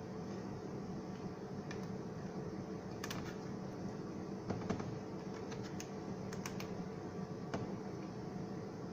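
Sparse light clicks and taps of small plastic parts being handled as a hose clip is fastened on the ionizer's plastic pipe, over a steady low hum.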